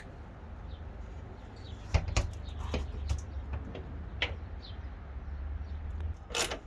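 A few scattered light clicks and knocks as a refrigerant hose and its crimp fitting parts are handled, over a steady low hum.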